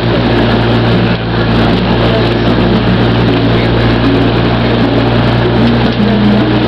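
Outrigger bangka's engine running steadily under way, a loud even drone, mixed with a rushing noise of wind and water.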